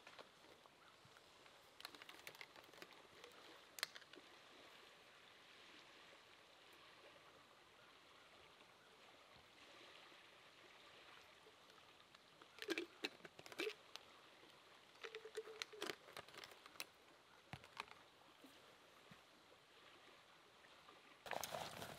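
Near silence: faint steady outdoor hiss, with scattered small clicks and taps a few seconds in and again in a cluster in the second half, and a couple of brief squeaks among them.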